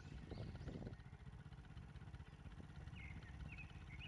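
Birds chirping over a low, steady rumble: a quick run of high, arched notes in the first second, then a few short chirps about three seconds in.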